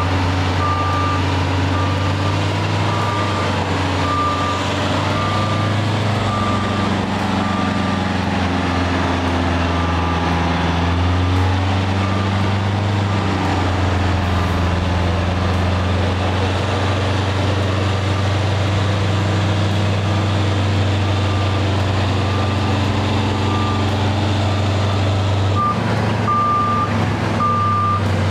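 Heavy diesel engine running under load, its pitch shifting up and down, with a warning beeper sounding a short high beep about once every 0.7 s, strongest near the end.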